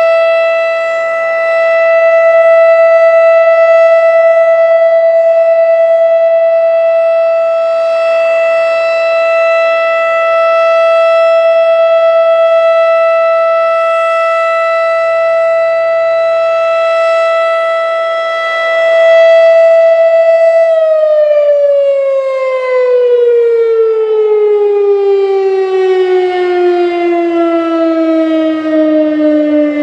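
Federal Signal Thunderbeam RSH-10A outdoor warning siren sounding a steady single tone, its loudness slowly rising and falling. About two-thirds of the way through, it winds down, the pitch falling smoothly.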